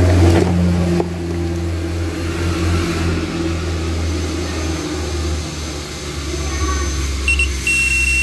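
Multimeter continuity beeper as its probe is held to the loudspeaker module's contacts to check the speaker coil: two short high blips, then a steady high beep near the end. A steady low hum runs underneath throughout.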